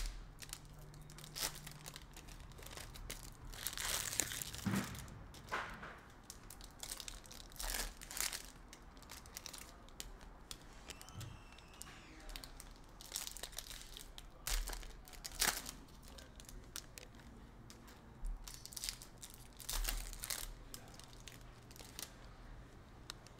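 Shiny foil trading-card pack wrappers being torn open and crinkled by hand, in irregular short bursts.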